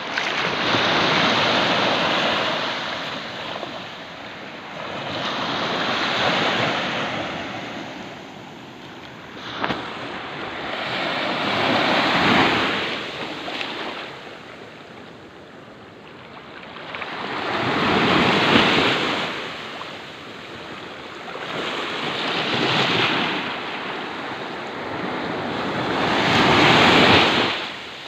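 Small sea waves washing in at the shoreline, the surf swelling and fading about every five or six seconds. A brief click sounds about ten seconds in.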